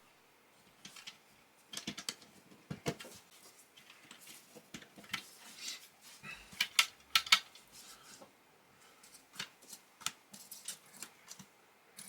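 Plastic Lego pieces clicking and rattling as they are handled and fitted together: irregular sharp clicks and small knocks, a few louder ones in the middle.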